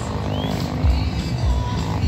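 Loud music with a heavy, pulsing bass beat.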